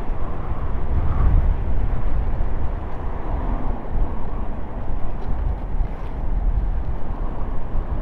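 Wind rushing over the microphone and tyres rolling on asphalt as a Trottibike scooter coasts along a road, a steady low rumble.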